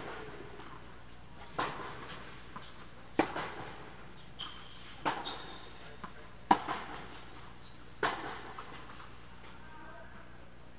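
Tennis ball struck back and forth in a rally: about five sharp racket pops, one every one and a half to two seconds, the near player's hits loudest, each ringing out in the echo of the indoor tennis dome.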